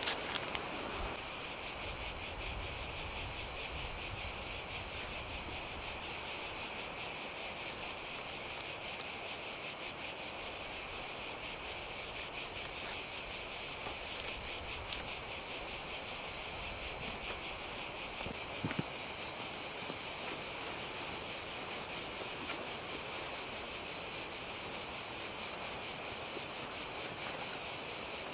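Dense, high-pitched insect chorus, trilling steadily with a fast pulse.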